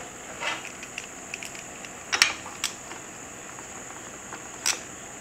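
A few sharp, scattered metallic clicks of steel armor scales and bolts being handled and lined up for bolting together, over a faint steady high hiss.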